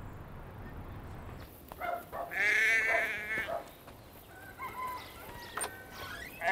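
A sheep bleating: one long quavering bleat a little over two seconds in, and another beginning right at the end.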